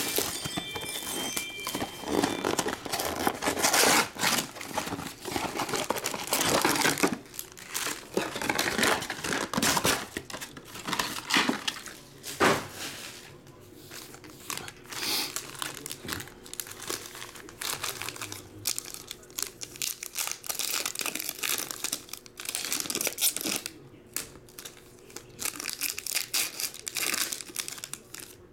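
Plastic shrink-wrap torn off a trading-card box, then foil card packs handled and ripped open: irregular crinkling and tearing throughout.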